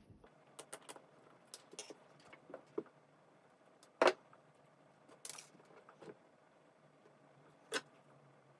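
Scattered small clicks and rustles of hands working electrical wires into the terminals of a push-button switch, with a sharper click about four seconds in and another near the end.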